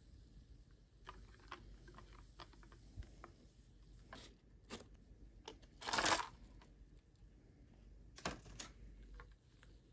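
White plastic spoon stirring hot cocoa with marshmallows in a glass mug, with many small ticks and clinks of the spoon against the glass. A louder brief rustling scrape about six seconds in, and two smaller ones a little after eight seconds.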